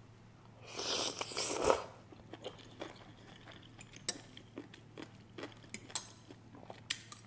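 A mouthful of spicy instant noodles slurped for about a second, then soft chewing with light clinks of a metal fork and spoon against a ceramic bowl.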